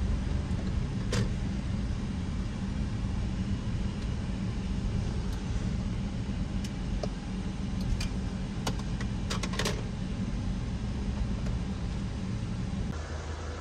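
Car interior noise while driving slowly: a steady low engine and road rumble, with a few sharp clicks about a second in and a cluster of them around eight to ten seconds in. The rumble gives way to a quieter hum just before the end.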